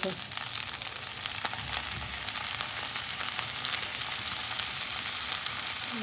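Meat sizzling steadily in a hot frying pan, with many small crackles, while a slotted spatula stirs it.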